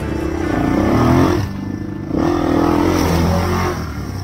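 Honda XR 250 enduro motorcycle's single-cylinder four-stroke engine revving under throttle while riding. There are two surges of acceleration, with a short drop in revs between them.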